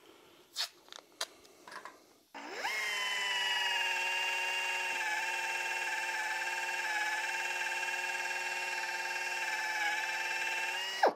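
Air-powered right-angle drill spinning up about two seconds in, then running at a steady whine as it bores into the aluminium cylinder head of an air-cooled Porsche 911 engine, and winding down sharply at the end. A few light clicks and taps of handling come before it starts.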